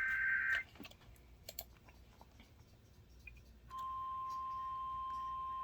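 Emergency Alert System SAME header: its last two-tone data burst ends under a second in, announcing a severe thunderstorm warning. After about three seconds of near quiet with a few faint clicks, the steady 1050 Hz weather radio warning alarm tone begins and holds.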